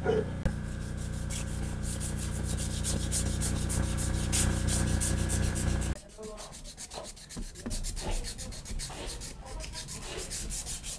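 A steady machine hum under fast, even rubbing strokes, which stops abruptly about six seconds in. Quieter scattered knocks and handling noises follow.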